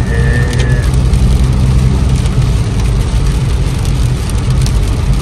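Steady low road and engine rumble inside a moving car's cabin, with rain hitting the windshield. A short high tone sounds during the first second.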